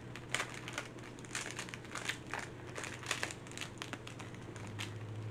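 Makeup brush packaging crinkling and crackling as it is worked open by hand, in irregular bursts of short crackles, over a faint steady low hum.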